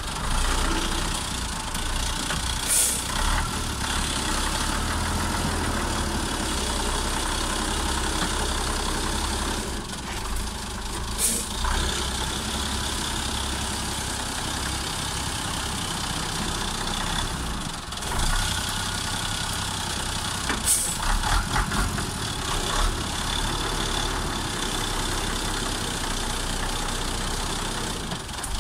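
Diesel engine of a FAP 4x4 logging truck running steadily while the truck works through mud on chained tyres, with three short hisses of compressed air along the way.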